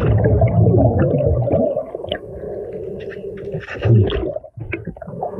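Muffled underwater sound from a submerged action camera: low rumbling and a wavering, moan-like voice from the free diver, loudest in the first two seconds, with scattered faint clicks later.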